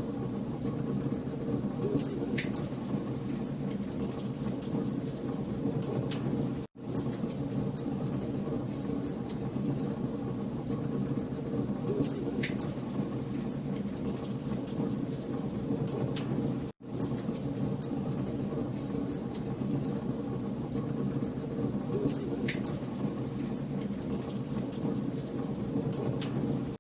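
Wood fire crackling and popping in a fireplace over a steady low rush of flame. The sound cuts out briefly twice, about ten seconds apart.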